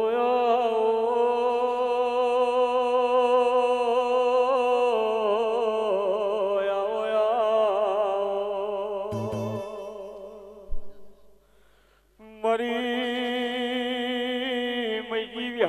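Devotional singing: long drawn-out vocal notes with a wavering vibrato, falling away about ten seconds in and starting again after a short break.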